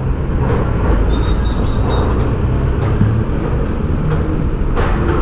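Motorcycle engine running steadily at low speed amid city road traffic noise.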